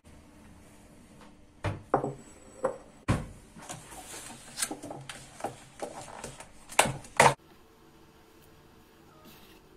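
Ceramic bowl and plastic yoghurt tub handled on a hard kitchen countertop: a run of uneven knocks and clatters for several seconds, loudest about three seconds in and near seven seconds, then dying away to a faint steady hum.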